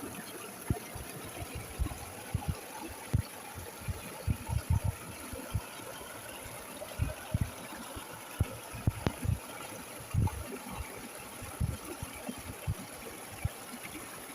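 Flowing water: a steady rush of a stream, broken by many irregular low thumps and gurgles.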